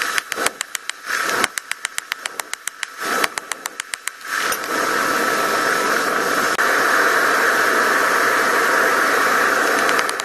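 Rapid runs of sharp metal strikes, many per second, as a pneumatic air hammer pounds red-hot steel on an anvil during the first four seconds. After that a steady, loud machine drone takes over and runs on.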